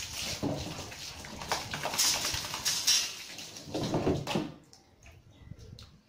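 Water splashing in noisy bursts over a wet dog's coat and a concrete floor during a hose bath. It stops suddenly about four and a half seconds in.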